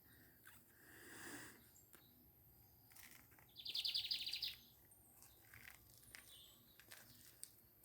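Small songbird giving a short, fast trill of high notes about halfway through, with a few faint chirps around it.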